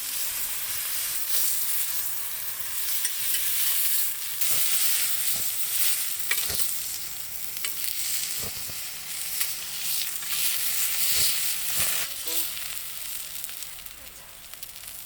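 Lamb chops sizzling on a hot grill plate over high heat, with scattered pops through the steady hiss. The sizzle falls away near the end.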